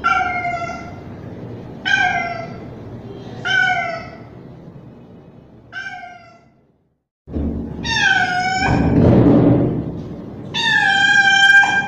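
A young male street cat meowing loudly. He gives six drawn-out calls, each dipping in pitch at the end, with the last one longer than the rest. A short burst of noise comes between the last two calls.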